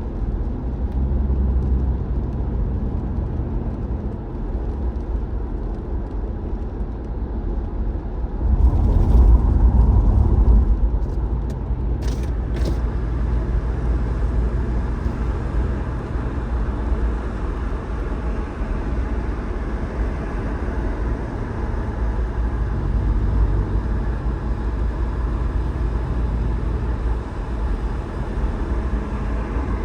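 A car driving, with a steady low rumble of engine and road noise. The rumble swells louder for a couple of seconds about nine seconds in, and a few sharp clicks follow soon after.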